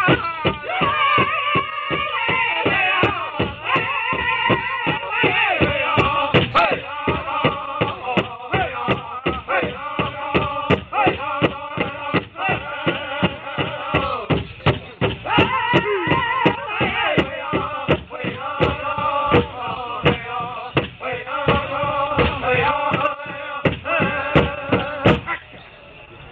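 Pow wow drum group playing an intertribal song: a steady, even beat struck together on a large drum under several high, wavering singing voices. The drum and song stop about 25 seconds in.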